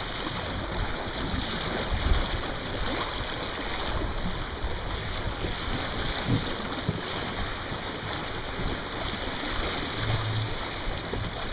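Steady rush of wind and water aboard a Sunfish sailing dinghy running downwind: wind buffeting the microphone over the wash of water along the hull.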